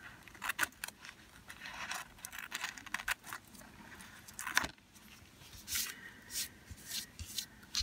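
Small scissors snipping off little scraps of tissue paper, in a few irregular short snips, with the tissue paper rustling and crinkling as it is handled.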